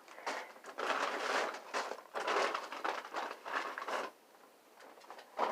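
Food packaging rustling and crinkling as it is handled, stopping about four seconds in.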